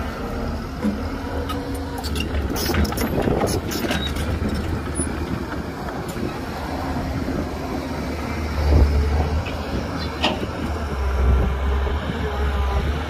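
Excavator and dump truck diesel engines running with a steady low rumble, with a burst of clattering and knocking about three seconds in and single knocks near the end.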